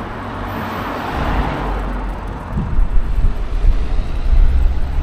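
Wind buffeting the microphone on a moving bicycle: a low, rumbling rush that turns gustier and louder about halfway through.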